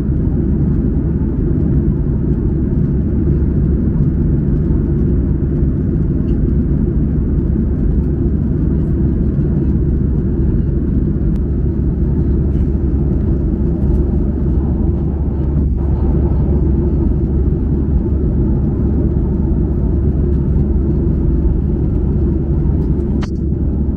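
Steady cabin drone of a Boeing 737-800 in flight, its CFM56 jet engines and the airflow heard as a low, even rumble from a window seat.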